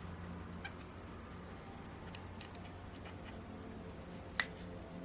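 A few faint clicks and light ticks of small metal engine parts and tools being handled on the workbench, with the sharpest click about four and a half seconds in, over a steady low hum.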